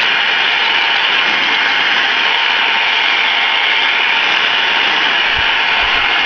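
Handheld hair dryer running steadily close by, a loud, even rush of blowing air, as it heats carbon fiber vinyl film so the film softens and seals into place.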